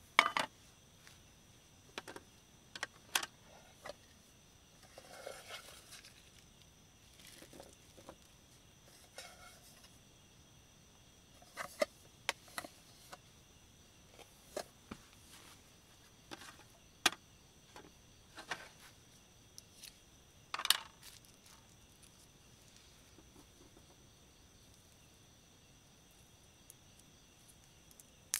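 Scattered light clicks and knocks of a metal camp pot and small items being picked up and set down on a camp table, the loudest clatter about two-thirds of the way in. A faint, steady high insect trill runs underneath.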